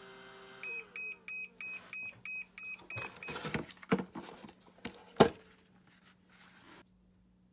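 A run of short, high electronic beeps, about three a second for a couple of seconds. Several sharp clicks or knocks follow, the loudest about five seconds in.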